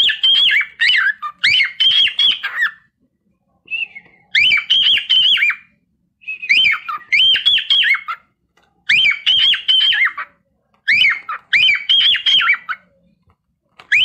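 Cockatiel calling in a string of quick, high chirping phrases, each about a second long, with short pauses between them.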